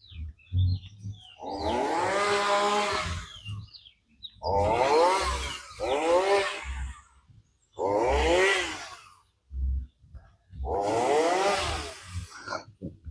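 Small engine revved hard five times in bursts of about a second each. Its pitch climbs and then drops away at every release of the throttle.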